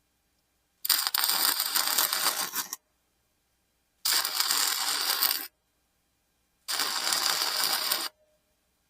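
Wire-feed (MIG) welder arc crackling in three short welding passes, about two seconds, then a second and a half, then a second and a half, with pauses between.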